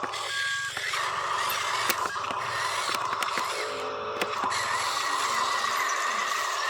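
Small electric motor and gearbox of a radio-controlled construction toy whining steadily, with scattered light clicks and rattles.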